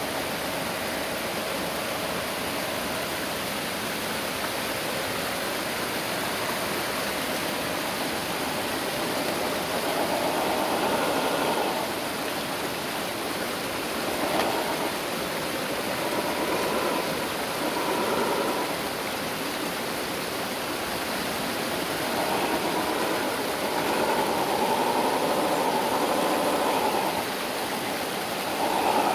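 An MN 128 RC rock crawler's small electric motor and gearbox whining in stop-start bursts of a few seconds each as it is driven, with the longest run near the end, over a steady rushing hiss.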